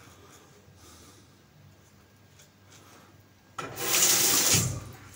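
Faint scraping of safety-razor strokes on lathered stubble, then a little over halfway through a tap runs into the sink for just over a second as the razor is rinsed.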